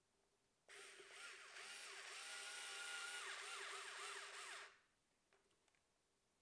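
Small cordless drill/screwdriver driving a bolt into an electric scooter's handlebar stem, running for about four seconds; its motor whine rises and dips in pitch as the bolt takes up load, then stops suddenly.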